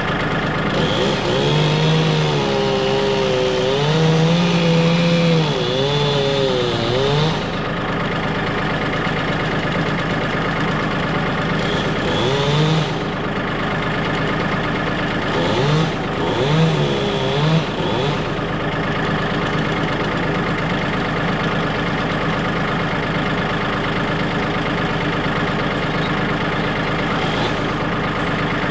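Stihl chainsaw cutting into a standing tree trunk. The engine note rises and wavers under load in several spells of cutting, and runs more steadily between them.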